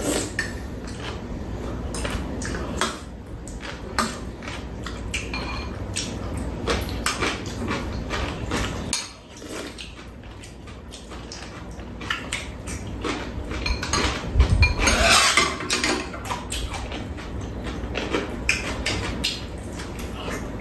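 Metal spoons and chopsticks clicking against ceramic bowls and a pan as two people eat, with mouth sounds of eating. A louder, noisier stretch comes about two-thirds of the way through.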